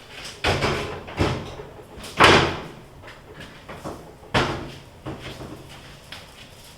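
Four bangs, like a door or cupboard being shut, each dying away quickly. The loudest comes about two seconds in.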